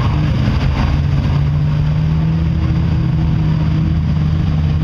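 SUV engine running hard at a steady pitch under load as the truck pushes through deep mud.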